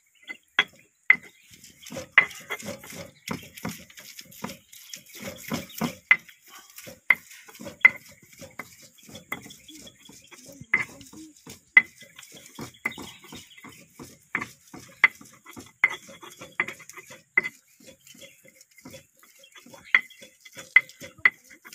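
Round stone pestle knocking and scraping on a flat stone mortar while mashing canned fish by hand: irregular sharp knocks, about one or two a second, with a short ring to each and grinding scrapes in between.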